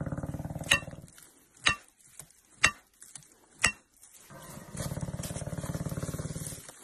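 Immobilised elephant breathing with a deep, pulsing rasp for about a second at the start and again from about four seconds in to near the end. In between, four sharp metallic clicks about a second apart, from metal tools working on the wire rope snare around its foot.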